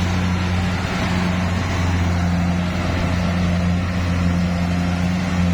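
Engine of a rice-field machine running steadily at constant speed, a continuous low hum with a noisy mechanical rattle over it.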